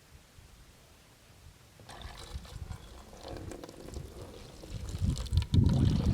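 Running, splashing water that starts about two seconds in and grows louder, with a heavy low rumble near the end.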